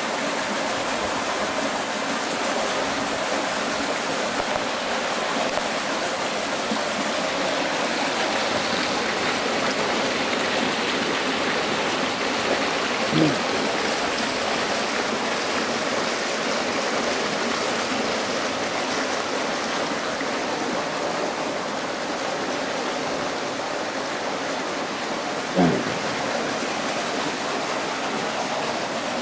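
Water from a fountain spout pouring steadily into a stone trough, a constant splashing rush. Two brief bumps stand out, one about halfway through and one near the end.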